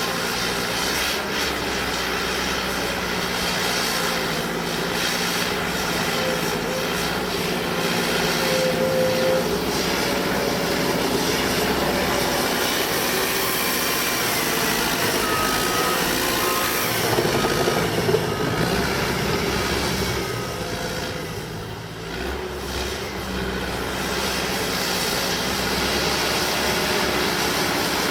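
Cat D5K crawler bulldozer's diesel engine running under load as it pushes mud on its tracks. The engine note dips briefly about three-quarters of the way through, then comes back up.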